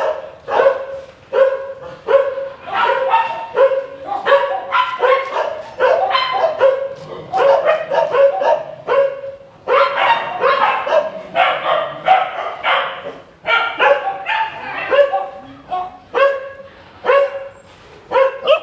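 Several shelter dogs barking continuously, a steady run of short overlapping barks at different pitches, about one to two a second.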